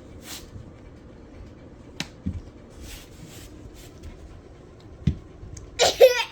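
Quiet handling sounds: a sharp click about two seconds in and a couple of soft thumps, with faint hissy puffs between them. Near the end comes a short burst of a child's voice.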